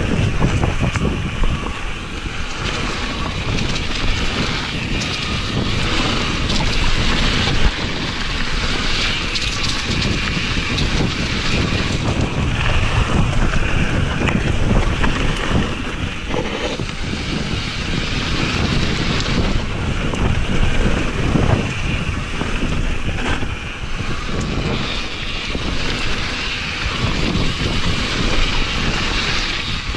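Wind buffeting the microphone of a camera on a mountain bike descending a rough dirt singletrack. Under it runs the steady rumble of knobby tyres on the dirt, with frequent rattles and knocks from the bike over bumps.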